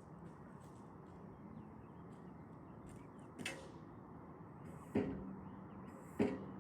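Steady outdoor background rush with three sharp knocks in the second half, the last two the loudest and each followed by a brief low hum.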